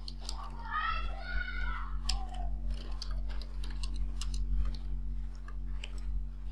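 Computer keyboard typing: irregular quick key clicks over a steady low electrical hum. About a second in, a brief high-pitched voice is heard in the background.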